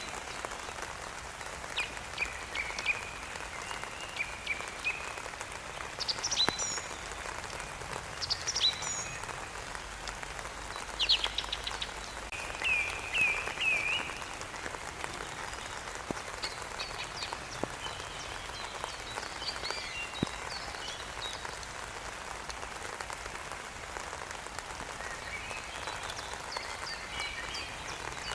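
Steady rain falling, with birds singing short chirps and trills every few seconds over it, busiest in the middle stretch.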